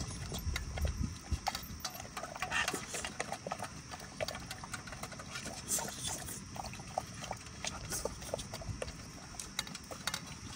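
A dog eating, chewing with an irregular run of small clicks and smacks.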